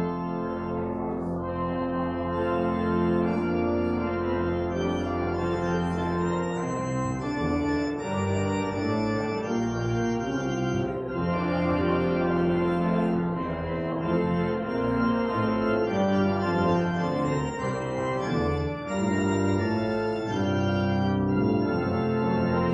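Organ playing slow, sustained chords over a low bass line.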